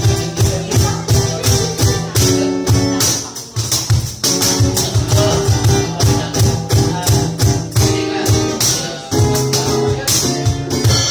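Live acoustic band music, an instrumental passage with no singing: strummed guitar chords over a pulsing low beat, with jingling hand percussion keeping steady time.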